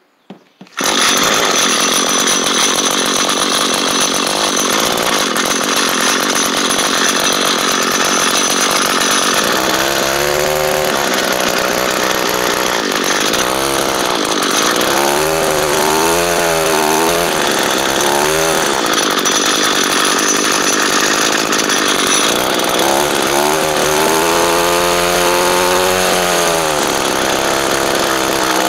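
Small two-stroke engine of a 2016 Echo GT-225 string trimmer firing up on a cold start about a second in, then running steadily and loudly.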